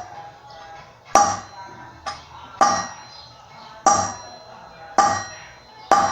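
Repeated hammer blows on metal, one every second or so, each ringing briefly before it fades.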